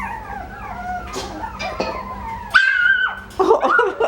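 Dogs whining in high, wavering tones, then a louder held yelp about two and a half seconds in, followed by short yips.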